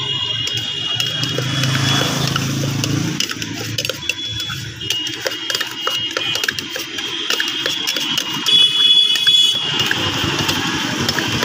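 Quick clicks and rattles of a stainless steel can as the chaat mixture is shaken and stirred inside it. Street traffic runs behind, with an engine running in the first few seconds and a high steady tone for about a second, some eight seconds in.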